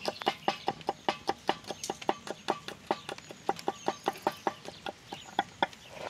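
Knife chopping peeled garlic cloves on a wooden cutting board: quick, even knocks of the blade against the wood, about five or six a second.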